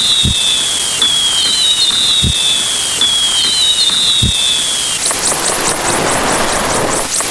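Looping sound effects: a falling whistle repeats about once a second, with a low thud every two seconds. About five seconds in, this switches to a rushing noise with quick rising chirps, about three a second.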